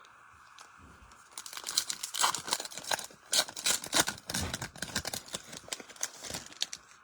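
Foil trading-card pack wrapper being torn open and crinkled, a dense run of sharp crackling that starts about a second in and goes on until near the end.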